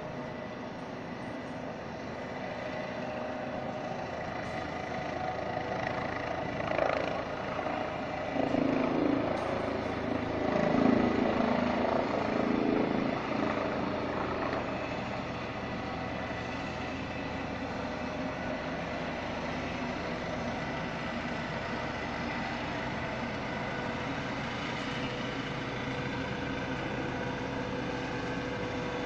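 Hospital helicopter flying at a distance, a steady engine-and-rotor hum, with a louder swell of engine noise from about six to fourteen seconds in.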